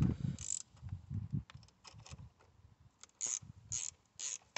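10 mm spanner working the clamp nut on a car battery's negative terminal: soft knocks of the tool on the terminal, then short bursts of metallic scraping, three of them close together near the end.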